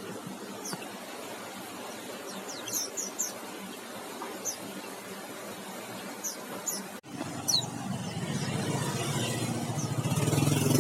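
Small white-headed munias (emprit haji) giving short, thin, high chirps every second or so, with a quick run of them about three seconds in. From about seven seconds in, a vehicle engine comes up underneath and grows louder toward the end.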